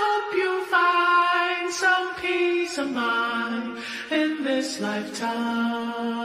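Background music: a slow song with one voice singing long held notes and no drums.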